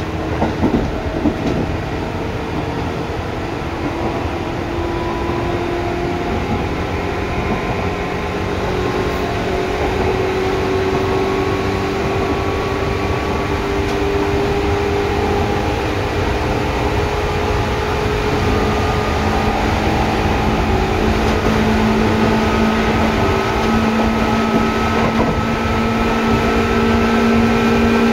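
Seibu 2000 series electric commuter train heard from inside the car, its traction motor and gear whine rising slowly in pitch and growing louder as the train gathers speed, over the rumble of the running gear.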